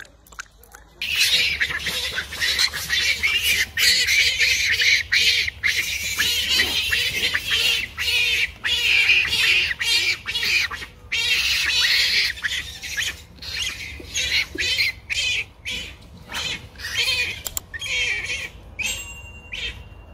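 Macaques screaming during a fight, loud high-pitched cries repeated with short breaks. The cries start about a second in and grow sparser near the end.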